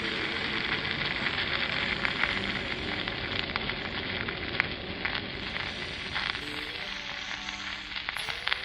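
Dense, steady crackling and sizzling noise full of small clicks, with faint held musical tones joining near the end.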